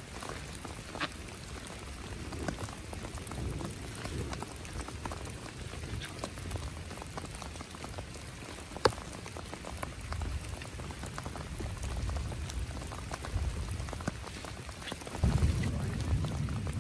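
Heavy rain falling steadily, with many close raindrops ticking and one sharp tap about nine seconds in. A louder, low-pitched noise sets in near the end.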